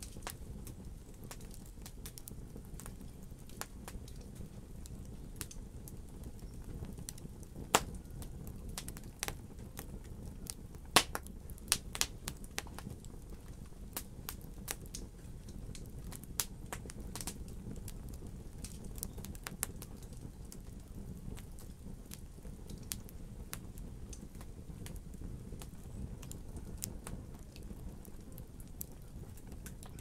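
Wood logs burning in a fireplace, crackling: irregular sharp pops and snaps over a low steady rumble of flame. The two loudest pops come about 8 and 11 seconds in, with a busier run of snaps just after.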